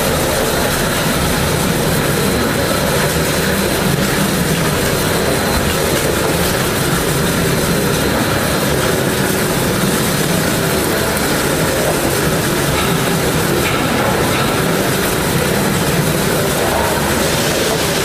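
A turntable stretch-wrapping machine running, turning a load while plastic film unwinds onto it. A steady mechanical noise with no pauses.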